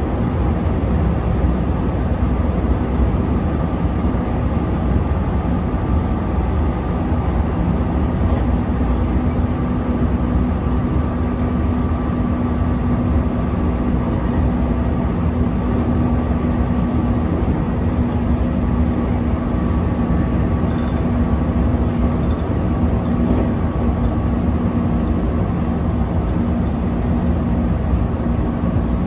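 JR West 221 series electric train running steadily at speed: a continuous rumble with a steady hum held throughout.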